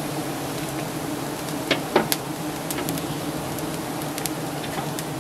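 A swarm of giant honey bees buzzing in a steady drone, stirred up by smoke from a burning leaf bundle held at the nest. Two sharp clicks about two seconds in.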